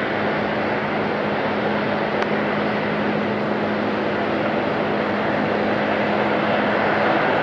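Airbus A330-243 airliner on its landing roll, its Rolls-Royce Trent 772B jet engines in reverse thrust as it slows. It makes a steady rushing roar with a steady low hum underneath.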